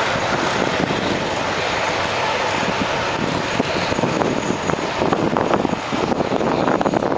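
Airbus A380's four Engine Alliance GP7200 turbofan engines running, a steady loud jet noise, with irregular crackles in the second half.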